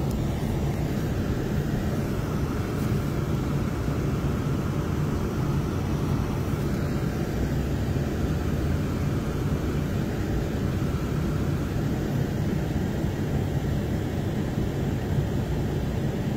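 Steady road and engine rumble heard from inside the cabin of a car moving along a highway.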